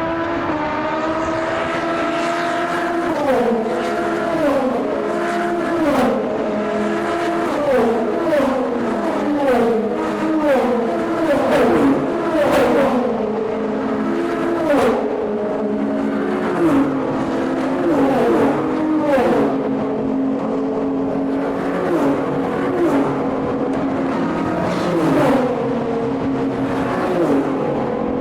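A stream of endurance race cars running past one after another at full racing speed, engines dropping in pitch in quick steps as they pass, over and over.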